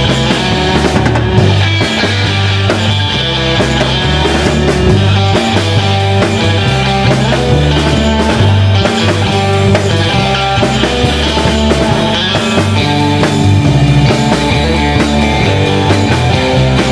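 Live rock band playing an instrumental: electric guitar over electric bass and a drum kit, loud and steady with a driving beat.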